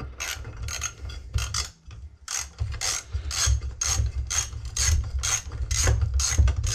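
Socket ratchet with a 10 mm socket clicking in repeated short strokes, about two or three a second, backing out a chainsaw muffler bolt, over a low steady hum.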